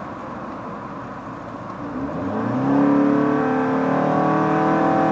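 Fiat 500 engine, breathing through a custom open intake into a Magnaflow exhaust, heard from inside the cabin: steady cruising road noise, then about two seconds in the engine pulls hard under acceleration and its growl climbs in pitch and gets much louder.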